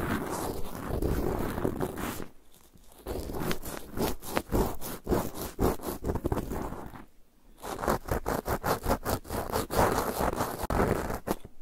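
Close-miked cotton swab scratching and rubbing over the grille of a Zoom H6's XY microphone capsule in quick scratchy strokes, with two short pauses. Near the end a fingertip rubs the capsule.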